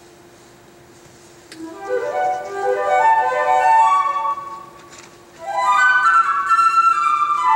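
Concert flute playing solo. It comes in about one and a half seconds in with quick rising runs that grow loud, breaks off briefly near five seconds, then sweeps up again to a held high note.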